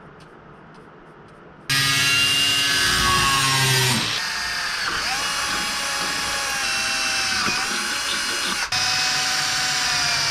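Cordless power drill drilling into a metal bar clamped in a bench vise. It starts suddenly about two seconds in, its motor whine shifting in pitch as the bit loads and frees, and breaks off for a moment near the end before running on.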